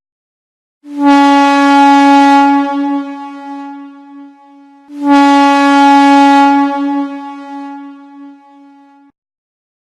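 Train whistle blown twice at one steady pitch, each blast held loud for about two seconds and then dying away over a couple of seconds.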